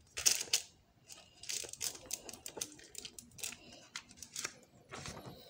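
Cardboard and plastic-film packaging of a table tennis rubber being opened by hand, rustling and crinkling in short irregular bursts as the folded card sleeve is pulled open.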